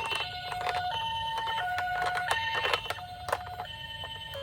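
Japanese ambulance two-tone siren sounding its 'pee-poh', alternating a higher and a lower tone about every two-thirds of a second, with scattered sharp clicks over it.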